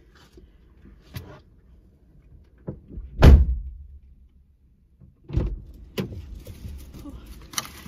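Car door shutting with a heavy thump about three seconds in, heard from inside the car's cabin, then a second thump about two seconds later.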